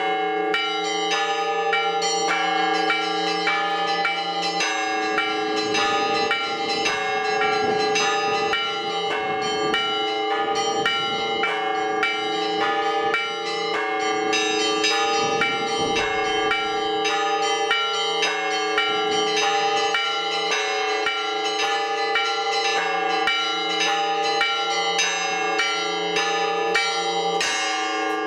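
Orthodox church bells being rung by hand: small bells struck in a rapid, repeating pattern several times a second over the sustained hum of larger bells.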